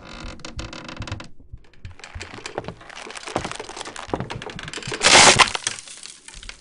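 Dense cracking and crunching, many sharp cracks one after another, with a louder crash about five seconds in.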